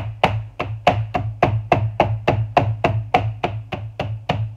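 Wooden meat mallet pounding pork loin cutlets through plastic wrap on a cutting board to tenderize them: quick, even strikes at about four a second, over a steady low hum.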